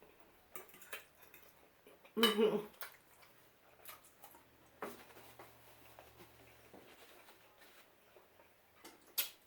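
Fork or spoon tapping and scraping against a plate in scattered light clicks, with a sharper click near the end. A brief vocal sound about two seconds in is the loudest thing.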